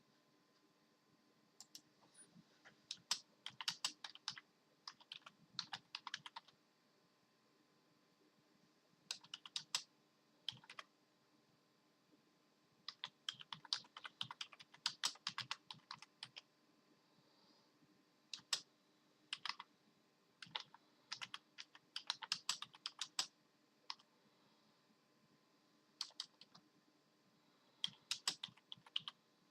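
Computer keyboard keys clattering in irregular bursts of rapid presses, each burst lasting a second or so, with pauses of a few seconds between them.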